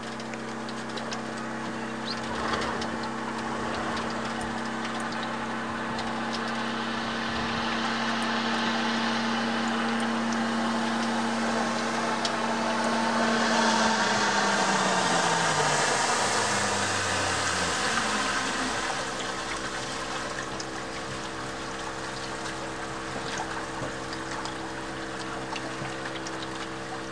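Motorboat engine running as the boat approaches, growing louder, then throttling down from about halfway through with its pitch falling. Water noise from the hull and wake swells with it.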